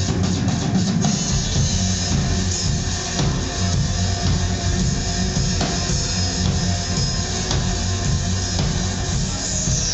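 Live instrumental rock from a band with synthesizer, electric guitar and drum kit, over a heavy, pulsing low end. About a second in, the drums move from a ticking beat to a steady cymbal wash.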